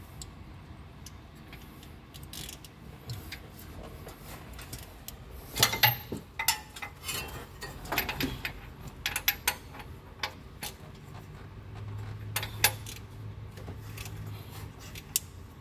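Scattered metallic clicks and clinks of hand tools working on the exposed valvetrain of a 4.7 L V8, with a loud cluster a few seconds in. A low steady hum runs for a few seconds near the end.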